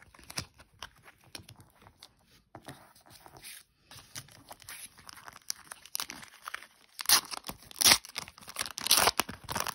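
A trading-card packet wrapper being torn open and crinkled in the hands, loud crackling tearing in the last few seconds after quieter handling of cards.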